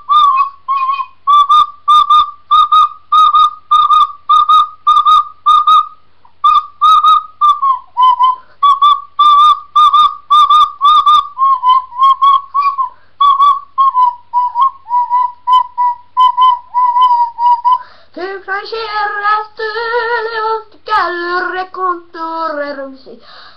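Tin whistle playing a melody, first as a quick run of short, separately tongued notes, then as a stretch of longer, slightly wavering lower notes. Near the end the whistle stops and a boy's voice sings.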